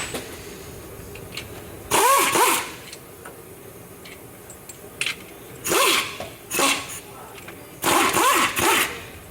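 Cordless power tool spinning in four short bursts, its motor whining up and down in pitch, as it runs out the transmission-to-engine bolts.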